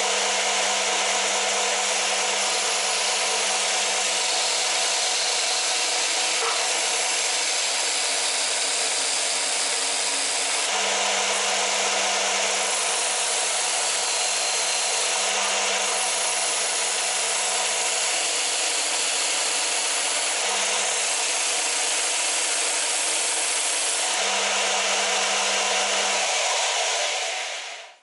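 WARRIOR W0506 belt-and-disc sander running steadily while a wooden bar is pressed against its spinning sanding disc, abrasive rasping on the wood's end grain at a 45° angle. It cuts off suddenly near the end.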